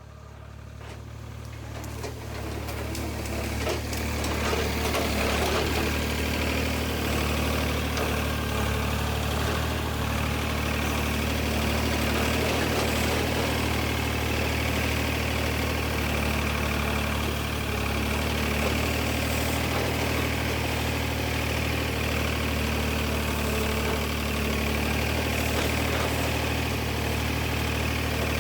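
An engine idling steadily, fading in over the first few seconds.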